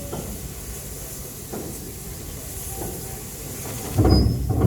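Steam locomotive 60163 Tornado, a Peppercorn A1 Pacific, standing with a steady hiss and low rumble. A much louder low rumble lasts under a second, about four seconds in.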